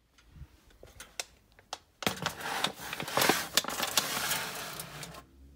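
Aluminium foil being handled over a roasting pan: a few scattered rustles and clicks, then from about two seconds in a dense crinkling crackle lasting about three seconds before it dies down.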